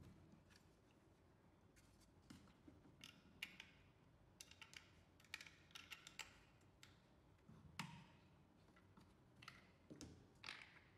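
Faint, scattered clicks, taps and short scrapes of hard plastic security-camera parts being handled and fitted together, including a small screwdriver worked on the plastic mount.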